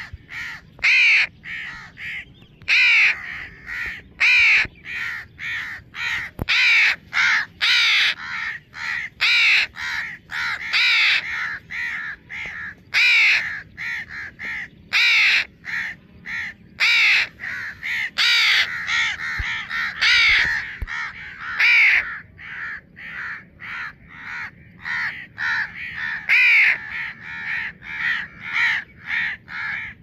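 Fledgling house crow giving harsh, repeated begging caws with its gape open and wings spread. Loud calls come every second or two, with quieter ones in between.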